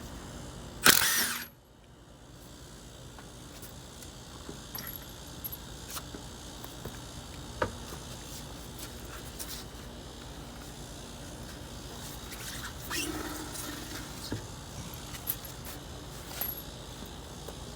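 A loud, short burst of noise about a second in, followed by scattered light metallic clicks and knocks while a front wheel is taken off a 2005 Toyota Corolla.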